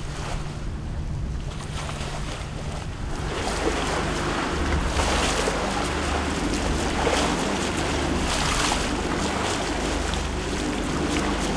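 Leopard 45 catamaran motoring on a calm sea: a steady low engine hum under the rush of water along the hulls and wind on the microphone, growing a little louder about three seconds in.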